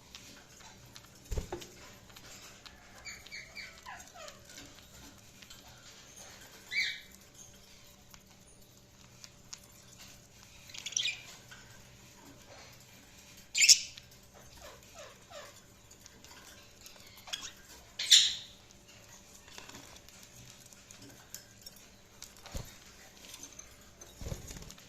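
Budgerigars giving short, scattered chirps, some sliding down in pitch, with a few louder, sharper calls. There are also a few dull knocks now and then.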